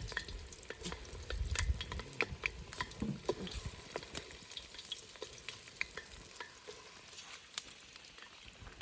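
Food frying in hot oil, with irregular crackles and pops over a faint sizzle.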